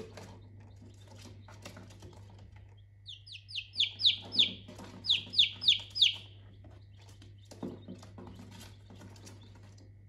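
Domestic chicks peeping: about ten loud, high peeps, each dropping in pitch, come in two quick runs of about four a second starting some three seconds in.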